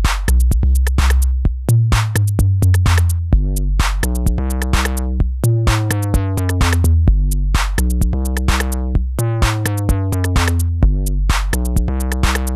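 A programmed 808 beat with an 808 kick-drum bassline plays from Native Instruments Maschine. The bass notes slide down in pitch under crisp, rapid hi-hat ticks. The Saturator's amount is turned up and down live, so the bass grows brighter and grittier with added harmonics, then cleaner again.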